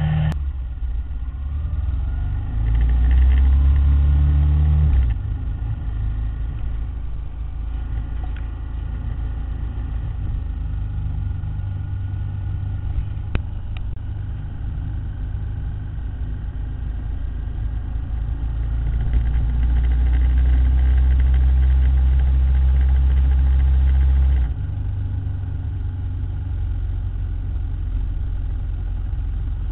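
Ducati motorcycle engine running as the bike is ridden along the road, swelling louder for a few seconds twice: about three seconds in, and again past the middle.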